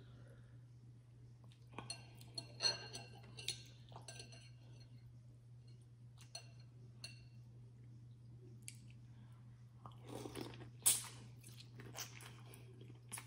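Eating a seafood boil: scattered clicks and clinks of shells and utensils, some ringing briefly, with chewing between them and a sharp snap near the end, over a steady low hum.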